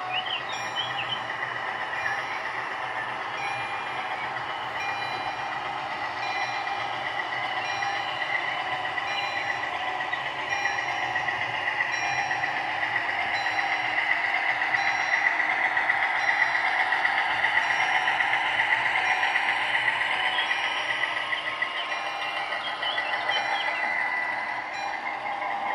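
An H0-scale model freight train, a diesel locomotive pulling wagons, runs past a model level crossing with a steady rattling rush of wheels on the track. The rush grows louder about halfway through as the wagons pass. The crossing's warning signal beeps throughout at about one beep a second.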